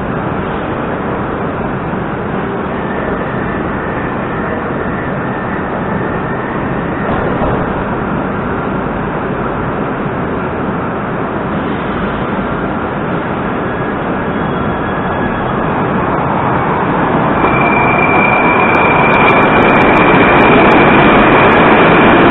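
Moscow Metro 'Moskva'-series electric train at a platform: a steady hum while it stands, then from about sixteen seconds in it pulls away and grows louder, with a high steady electric whine coming in near the end as it accelerates out of the station.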